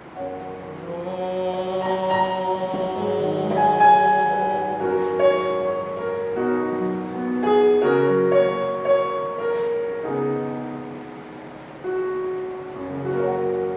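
Instrumental music with piano: slow, held chords playing the closing bars of a musical-theatre ballad.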